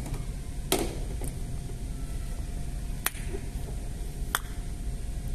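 Four sharp clicks of plastic toy cookware, a toy frying pan knocked against a toy kitchen's stovetop, over a steady low hum.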